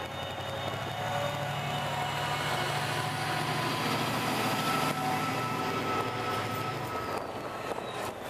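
Class 68 diesel-electric locomotive passing at close range, its Caterpillar V16 diesel engine running with a steady low drone and a high whine over it. The whine slides down in pitch in the second half, and the drone fades about seven seconds in as the locomotive moves off and its container wagon rolls by.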